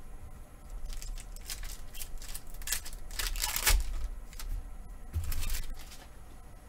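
Pokémon trading cards being handled and moved about over a table mat: several short rustling swishes, the loudest about three and a half seconds in.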